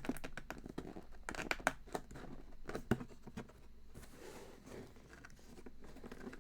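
A cardboard shipping box being opened by hand: scattered clicks, scrapes and rustles of tape and packaging, busiest in the first three seconds and quieter after.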